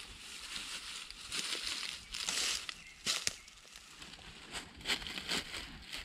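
Irregular bursts of rustling and crinkling, loudest a little over two seconds in, with a few sharp clicks around three seconds in and again near the end.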